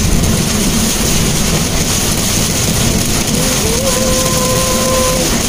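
Steady running noise inside a Mitsubishi Mirage's cabin while driving in rain, the engine and tyres mixed with rain on the windshield. A short held tone sounds from about three and a half to five seconds in.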